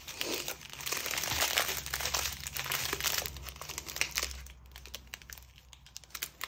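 Small clear plastic bags of diamond-painting drills crinkling as they are handled and sorted. The crinkling is busiest in the first four seconds and grows quieter after.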